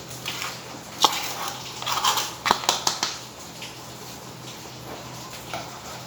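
Kitchen utensil knocking and scraping against a pan, with one knock about a second in and a quick run of sharp clicks between about two and three seconds in, as powdered sugar goes into the ghee-roasted semolina.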